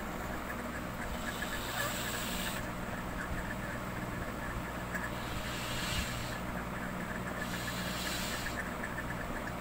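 A steady mechanical hum with background hiss.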